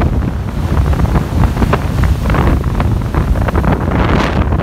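Strong tropical-storm wind buffeting the microphone over rough surf, with waves breaking and washing against shoreline rocks. A louder rushing surge comes about four seconds in.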